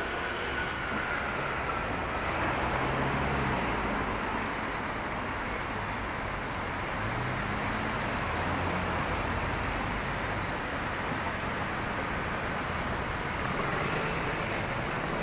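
Street traffic: cars driving past on the road, a steady wash of tyre and engine noise, with engine notes rising and falling as vehicles pass.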